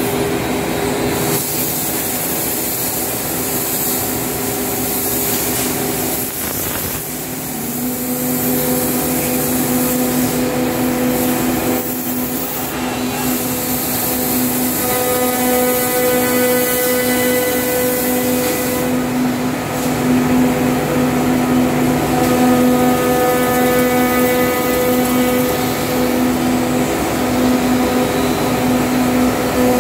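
Heian CNC router spindles running with a steady whine over a constant rushing noise while routing the curved seat tops of wooden stool blanks. The whine grows stronger about eight seconds in.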